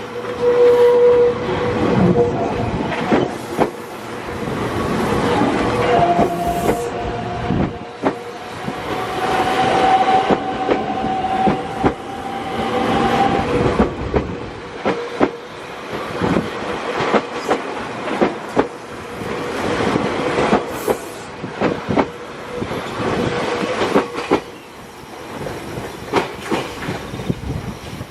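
Meitetsu electric train passing a level crossing, its wheels clacking over the rail joints. A brief tone sounds about half a second in, and a steady whine rises slightly in pitch from about six to thirteen seconds in.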